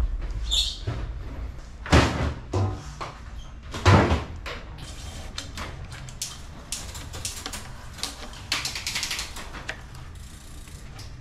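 Workshop handling noises from a bicycle being worked on: two loud knocks about two seconds apart, among many small clicks and rattles, with a brief rustle later on.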